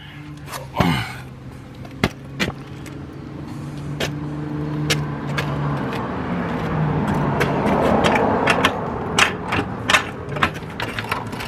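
A motor vehicle running nearby, its sound swelling to a peak about eight seconds in and then easing off, with scattered sharp clicks and knocks throughout.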